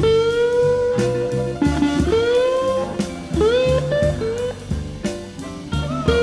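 Blues music: a slide guitar plays long held notes that glide up and down in pitch over a low rhythmic backing.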